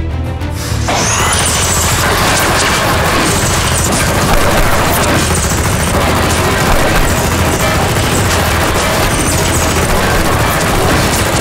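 Sustained rapid-fire Nerf blaster shooting, a dense clatter of shots and foam balls hitting, starting suddenly about a second in, over background music.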